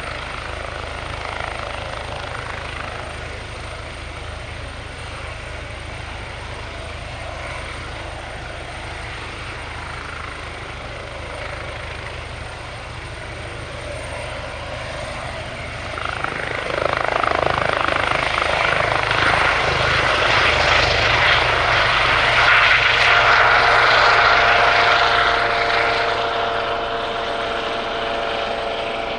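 Eurocopter EC135 T3H twin-turbine helicopter with its Fenestron shrouded tail rotor, running steadily in a low hover. About halfway through it grows louder as it lifts away and passes close by, with a steady whine added on top, then eases off a little near the end.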